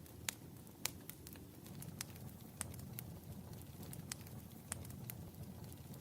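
Wood fire burning in a fireplace: a low steady rumble of the flames with sharp, irregular crackles and pops from the burning logs.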